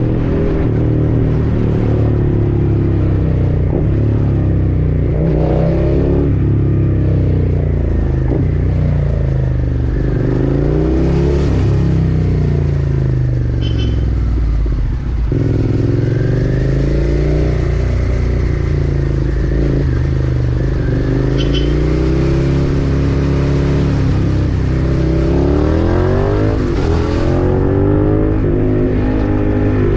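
Suzuki SV650's 645 cc V-twin engine running under way, its pitch climbing and falling back again several times as the throttle is opened and the gears are changed, with a brief dip in level about halfway.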